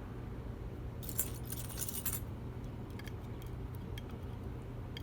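Small metal padlock pins and springs clinking as they are tipped out and handled: a jingle lasting about a second, starting about a second in, then a few separate light clicks, over a steady low hum.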